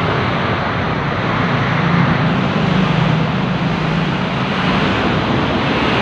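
Steady street traffic noise: passing vehicles' engines and tyres, with a low engine drone that fades near the end.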